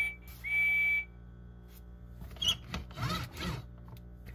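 Electronic whistle from a motorized Percy toy engine's speaker: two short toots of a high steady tone, the second ending about a second in. After that, faint rubbing and knocking as a hand handles the toy.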